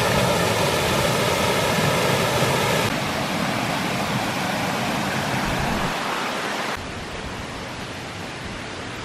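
Water pouring over a small concrete weir into a pool, a steady loud rush. About three seconds in it changes to a shallow stream running over rocks, and near seven seconds in it drops to a quieter steady outdoor hiss.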